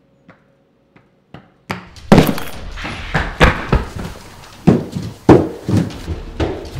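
Heavy footsteps hurrying down wooden stairs: a few faint clicks, then from about two seconds in a loud run of uneven thuds, several a second.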